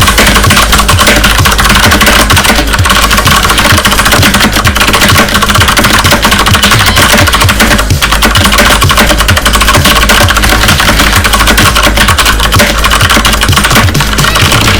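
Fast, continuous typing on a mechanical keyboard with Cherry MX Blue switches: a loud, dense stream of sharp key clicks.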